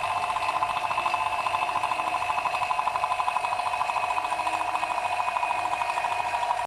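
Refrigeration vacuum pump running steadily, with a fast even pulsing, as it pulls air and moisture out of a window air conditioner's refrigerant circuit.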